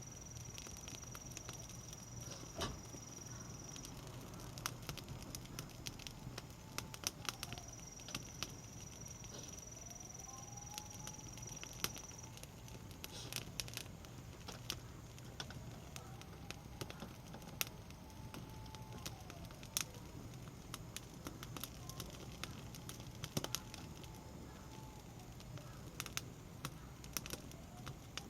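Conifer firewood burning in a campfire stand, crackling with frequent sharp, irregular pops.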